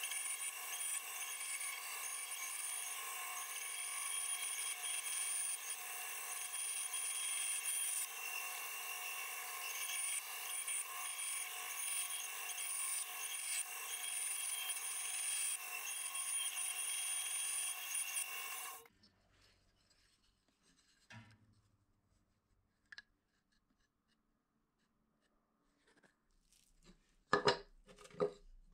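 Band saw running steadily as it cuts a flat piece of wood along a drawn outline. It stops abruptly about two-thirds of the way in, leaving near silence with a few faint rustles and clicks near the end.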